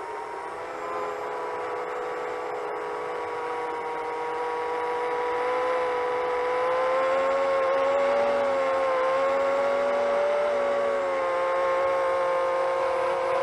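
Multirotor FPV quadcopter's motors and propellers humming steadily, the pitch wavering slightly with throttle and the sound growing louder over the first half.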